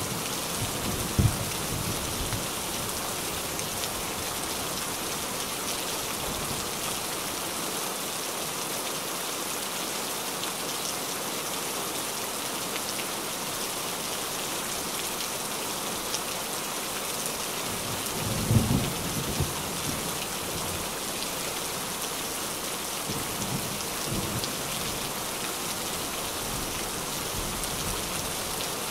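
Steady rain pattering on a tin roof, with thunder: a short sharp clap about a second in, a low rumble a little past the middle, and a fainter one later.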